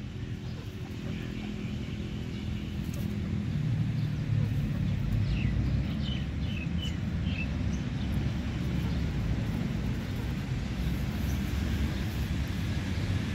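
Low rumble of a distant vehicle engine, growing louder over the first four seconds and then holding steady, with a few faint short bird chirps about halfway through.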